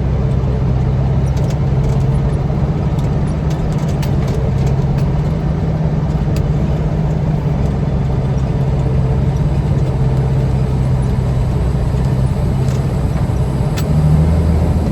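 Heavy truck's diesel engine pulling hard and steady under load through deep sand, heard from inside the cab; near the end it revs higher and louder as the truck bogs down.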